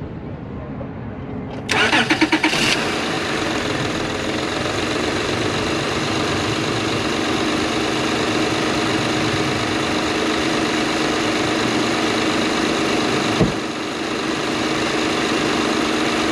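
Acura TL engine cranking on the starter for about a second, then catching and settling into a steady idle. It runs evenly, no longer misfiring, with a new ignition coil on cylinder 6 and fresh spark plugs.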